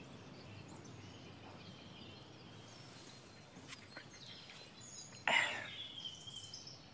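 Quiet outdoor background with faint bird chirps, and one brief louder noise about five seconds in.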